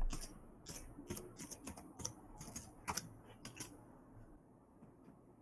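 Faint, irregular typing clicks, about a dozen light taps over the first three and a half seconds.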